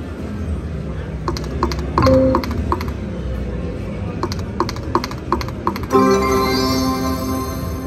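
Video slot machine's game sounds: quick clicks about three a second over casino hum, a short chime about two seconds in, and a louder multi-note win jingle starting about six seconds in as a small line win pays.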